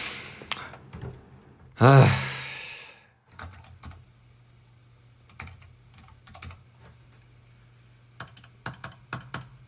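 Computer keyboard typing in short, scattered clusters of keystrokes over a low steady hum. About two seconds in there is a loud, drawn-out vocal sound.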